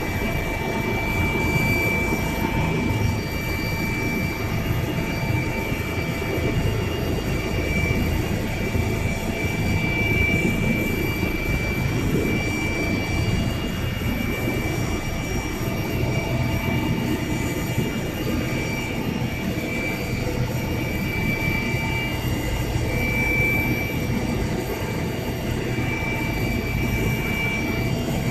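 Helicopter turbine engine running steadily: a constant loud rush of noise with a steady high-pitched whine over it.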